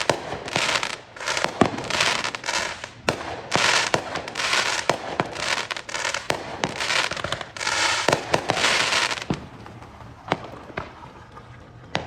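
Many fireworks and firecrackers going off around the neighbourhood: rapid crackling bursts mixed with sharp bangs. They thin out to a few scattered pops about three-quarters of the way through.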